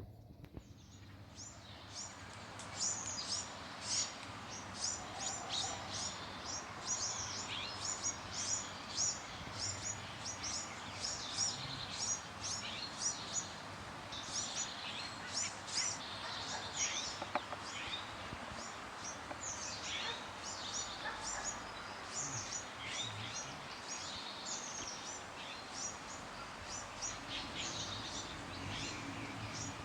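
Small birds chirping and singing in a dawn chorus, many short high chirps in quick succession, over a steady background hum.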